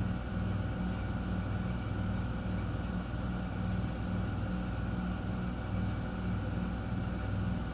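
Miele W1 front-loading washing machine running its interim spin after the main wash: a steady low motor hum that pulses about twice a second as the drum turns.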